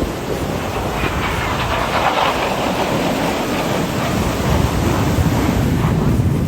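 Aircraft flying past overhead: a loud engine roar that swells about two seconds in, turns to a deeper rumble, and drops off right at the end.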